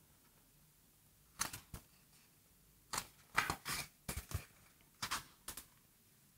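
A hardcover picture book being handled and opened: a scatter of soft paper rustles and clicks as the cover and first pages are turned, in three small clusters.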